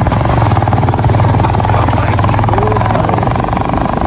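Motorcycle engine running steadily as the bike rides along, a continuous even drone.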